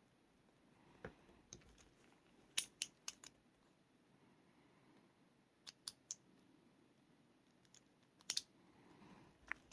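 Sparse small metallic clicks, a few in quick clusters, as a tool works at the retaining C-clip on a lock cylinder to pry it off.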